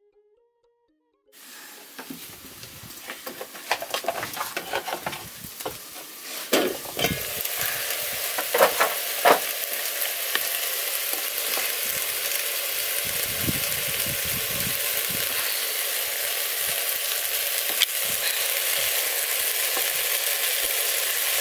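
Goat meat sizzling in a metal pot over a charcoal stove as its cooking water boils away, a steady hiss that starts suddenly about a second in and grows slightly louder near the end. Knocks and clatter of the pot and utensils come through the first half.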